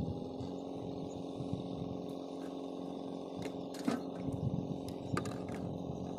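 A steady engine drone runs throughout, with a few light clicks and taps of plastic bottles and a plastic pipe being handled, about four in the second half.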